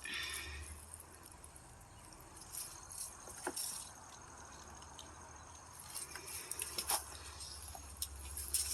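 Faint outdoor ambience: a low rumble with scattered small clicks and crackles, a few of them about three and a half seconds in and again near the end.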